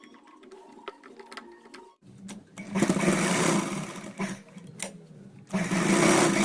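Sewing machine running in two short stitching runs, the first starting about two and a half seconds in and tapering off, the second near the end, after a couple of seconds of light clicks from parts being handled. It is being run with a freshly fitted new needle plate.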